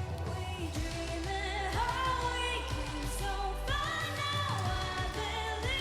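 Female lead vocalist singing a K-pop pop ballad live over a backing track with a steady bass line, holding long notes with vibrato that slide up into higher held notes.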